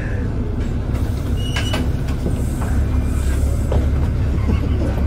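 Steady low rumble of a city bus's engine and running gear heard inside the passenger cabin, with a couple of sharp clicks or rattles.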